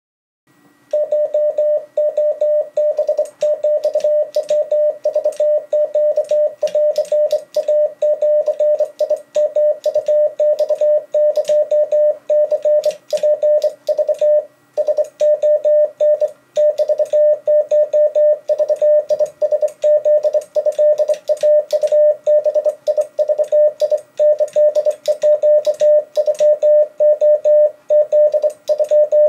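Morse code sent on a replica Mecograph Model 3 bug key (semi-automatic telegraph key), heard as the radio transceiver's sidetone: a steady beep keyed rapidly on and off in dits and dahs, with the key's lever and contacts clicking along with it. The sending starts about a second in and pauses briefly twice near the middle.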